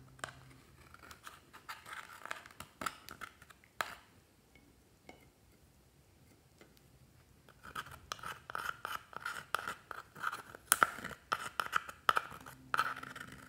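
Metal spatula tool scraping and picking at pressed eyeshadow in a palette pan, in quick scratchy strokes: one spell of about four seconds, a pause, then a longer spell from about eight seconds in.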